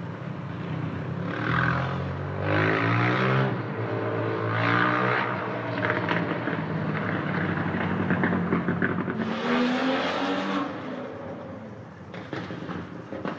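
Motocross bikes revving hard, their engines rising in pitch and falling back several times over.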